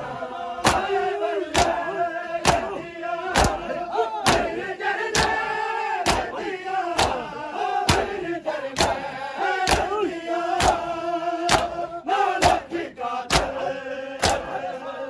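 Shia matam: a crowd of bare-chested men slapping their chests in unison, a sharp slap about once a second, while men chant a Punjabi noha (mourning lament) in time with the beat.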